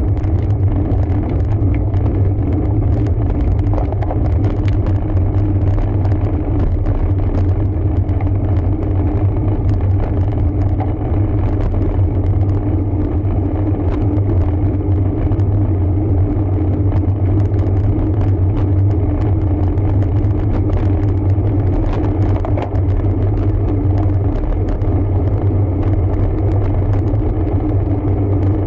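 Steady wind rumble and road noise on the microphone of a camera carried on a moving road bike, with a low drone running under it.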